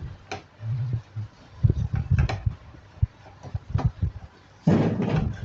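Spatula knocking and scraping against a cooking pan as leafy greens are stirred: irregular clicks and knocks, with a louder burst of noise near the end.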